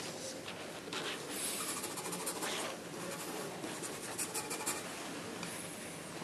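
TWSBI Diamond 530 fountain pen's nib scratching across a sheet of paper in quick, irregular strokes: a test scribble to check that the pen still writes after being dropped.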